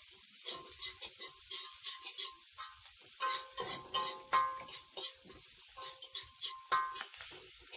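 Spatula scraping and clanking against an aluminium wok in quick, irregular strokes as vegetables are stir-fried, the pan ringing briefly with each stroke, over a light sizzle.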